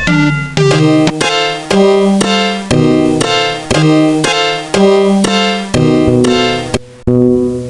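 Background music: a piano-like keyboard melody in short, evenly paced notes, about three a second.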